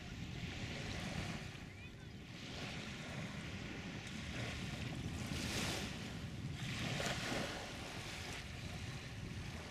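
Seafront ambience: small waves washing on the shore with wind rumbling on the microphone, the hiss swelling twice about five and a half and seven seconds in.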